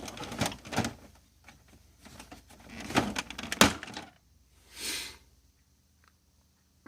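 Plastic clicks and knocks of an Epson WorkForce Pro WF-3720 inkjet printer's cover being handled and lifted open, with one sharp click about halfway through and a short swish a second or so later.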